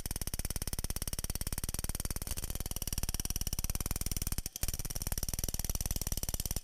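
Pneumatic rivet gun hammering a solid aircraft rivet against a heavy bucking bar in a rapid, steady stream of blows. It is held on long enough to overshoot the rivet and pancake its shop head. The hammering breaks off briefly about four and a half seconds in, then resumes.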